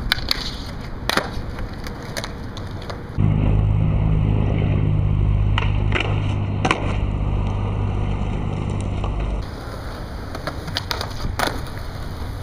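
Skateboard wheels rolling on concrete, with a series of sharp clacks as the board pops, lands and strikes concrete ledges. A louder, steady low rumble runs from about three to nine seconds in.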